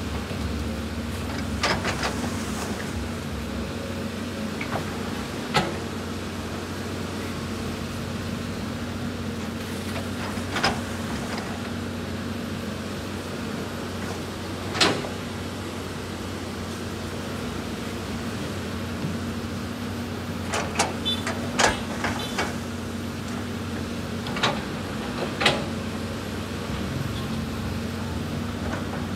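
A Caterpillar 320D hydraulic excavator's diesel engine running steadily as it works. About ten sharp knocks of the steel bucket and rock are scattered through, several close together near the end.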